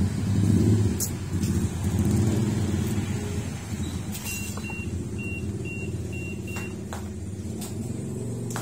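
A motor vehicle engine running nearby with a steady low hum that slowly fades. Midway, a string of about six short high beeps sounds.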